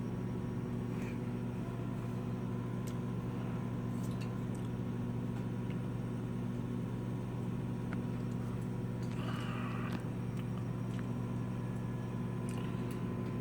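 Steady electric hum of a pellet furnace's fan motors running, with a few faint clicks and a short hiss about nine seconds in.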